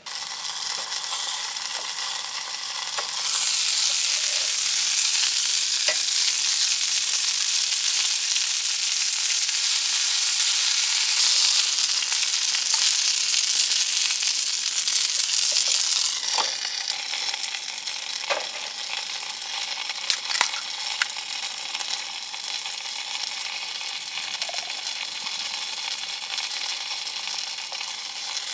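Chicken wings sizzling as they cook, a dense frying hiss with scattered sharp pops of spitting fat. It swells a few seconds in and eases off a little past the halfway point.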